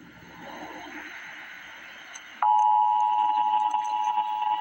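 Emergency Alert System broadcast: faint static hiss, then about two and a half seconds in the steady two-tone EAS attention signal starts suddenly and holds.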